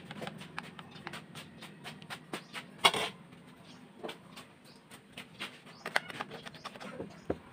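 Irregular light clicks and taps of handling, with one louder knock about three seconds in.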